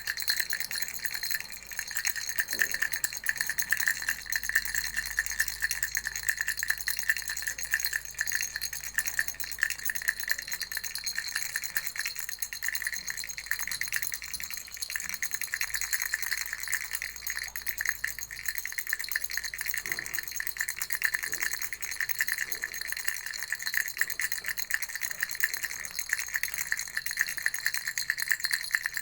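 Baby rattle shaken continuously: a fast, dense, even rattling of small beads or pellets inside a hollow toy, bright and high in tone.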